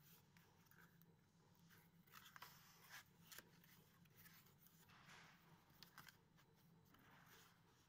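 Faint scraping, rustling and light taps of a corrugated cardboard box blank being handled and folded along its creases, over a low steady hum.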